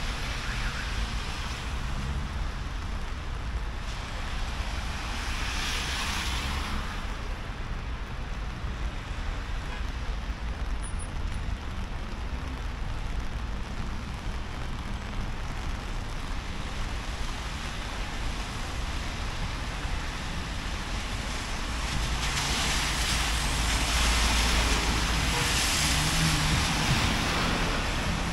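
Road traffic on wet streets: cars passing with tyre hiss over a steady low rumble, one passing a few seconds in and a louder one passing near the end.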